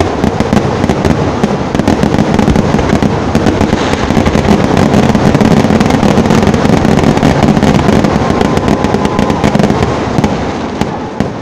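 Fireworks going off in a dense, unbroken barrage of bangs and crackling, easing off near the end.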